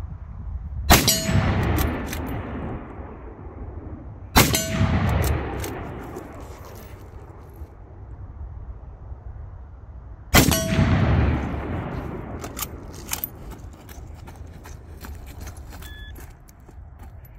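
Three rifle shots, about a second, four seconds and ten seconds in, each with a long echoing tail. Small clicks and rattles of the rifle being handled come between the shots.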